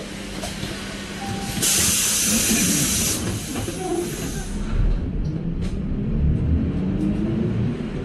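Inside a city bus, a loud hiss of air from the brakes releasing about two seconds in, lasting about a second and a half. Then the engine and tyres rumble more strongly as the bus pulls away on a wet road.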